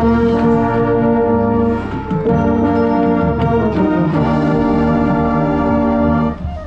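Marching band brass playing loud, held chords that change twice, then drop off sharply a little before the end.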